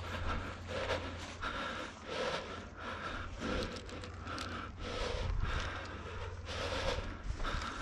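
Heavy panting breaths of the camera wearer close to the microphone, quick and even at about three breaths every two seconds, over a steady low rumble.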